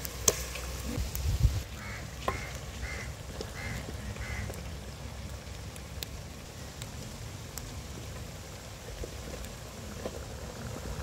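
Peeled green bananas set down into a metal cooking pot, giving two sharp knocks in the first second and a half. Then a bird gives five short calls about half a second apart.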